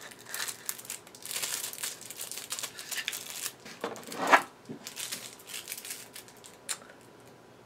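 Paper and cardboard packaging crinkling and rustling in bursts as items are handled and pulled out of a box, with one louder rustle about four seconds in.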